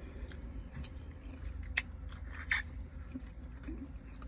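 Close-up chewing and mouth sounds of a person eating shredded beef stew, with scattered small clicks, a sharp click a little under two seconds in and a short noisy burst soon after, over a low steady hum.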